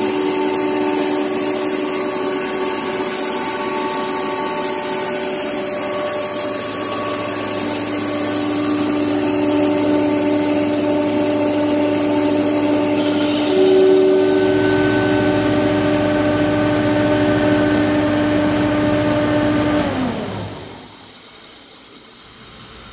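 Ingersoll Rand SSR EP15 15 HP rotary screw air compressor running loaded at about 116 psi, a steady hum of several held tones. A little past halfway its sound shifts as it is stopped and unloads, and near the end the motor winds down, its pitch falling, until it goes quiet.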